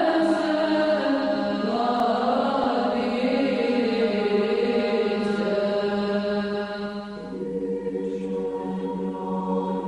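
Chanted vocal music, a melody moving over a steady low drone, settling onto held notes about three-quarters of the way through.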